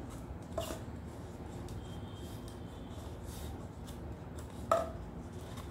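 Paper rubbing and rustling as a strip of paper is pressed and smoothed around a paper cup, with two short, louder handling sounds, one about half a second in and one near the end, over a steady low background noise.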